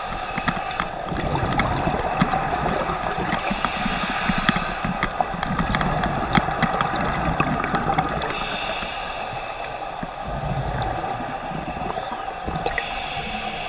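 Underwater water noise with bubbling from a scuba diver's regulator: bursts of hissing bubbles about every four to five seconds over a steady rumble. Scattered sharp clicks run through it.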